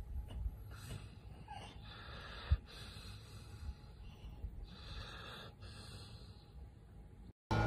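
Sleeping dog breathing noisily with soft snorts, repeating every second or so, and one dull thump about two and a half seconds in.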